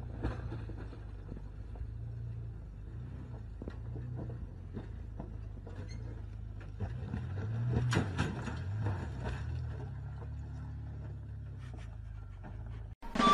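Toyota pickup's engine running under load as it climbs a steep rocky slope, a low steady drone with scattered crunches and knocks of rock under the tyres; it swells louder about eight seconds in.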